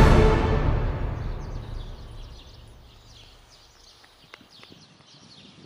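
Background music fading out over the first two seconds, leaving faint, busy chirping of many small birds, with a few soft clicks near the end.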